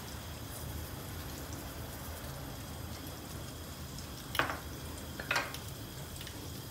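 Oil sizzling in a frying pan on the stove, a steady hiss with a low hum under it, with two short clatters about four and five seconds in.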